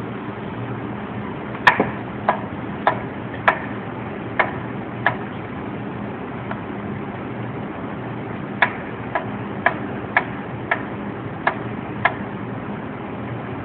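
Chef's knife slicing mushrooms on a wooden cutting board: the blade knocks sharply on the board about twice a second, in two runs of about seven cuts with a pause of a few seconds between them.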